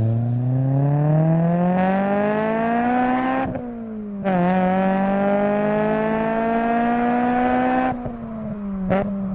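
A car engine accelerating hard: its pitch climbs for about three and a half seconds, dips at a gear change, then holds high before easing off near the end. A short click comes about nine seconds in.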